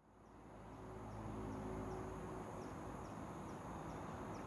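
Quiet outdoor morning ambience fading in: a steady high insect drone over a low mechanical hum with a few steady tones. Faint short chirps repeat about twice a second.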